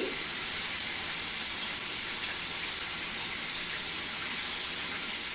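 Chicken pieces frying in hot oil in a cast-iron pan: a steady, even sizzle.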